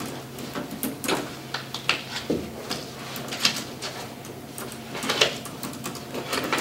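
Light handling noises at a table: paper rustling and scattered soft clicks and knocks, over a steady low room hum.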